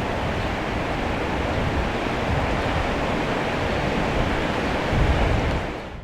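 Steady rushing of flood water with wind buffeting the microphone, fading out just before the end.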